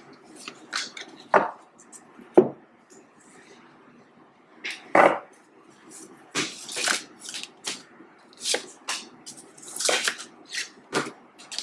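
Deck of tarot cards being shuffled and handled: a string of irregular card flicks, rustles and taps, coming thicker in the second half.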